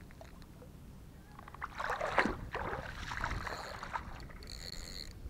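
Wet handling noise of a freshly caught mullet being unhooked and put away: a burst of rubbing, slapping and watery sounds starting a little over a second in, loudest around two seconds, then tailing off.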